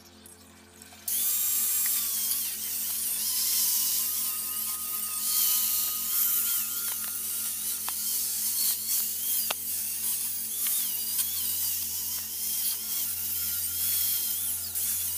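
Electric angle grinder with a wire brush attachment switching on about a second in and scrubbing a bicycle frame: a loud, rough scraping over the motor's wavering whine, stripping the old paint and rust off the tubes.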